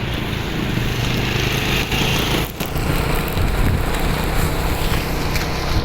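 Strong storm wind gusting and buffeting the microphone, a loud, rough rushing with deep rumble that briefly drops about two and a half seconds in.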